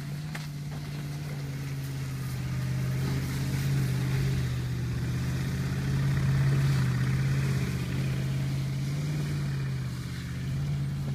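BMW X5's engine pulling steadily as the SUV drives off-road up a grassy, muddy slope; a low, even drone that swells as the vehicle comes close and eases again as it moves away.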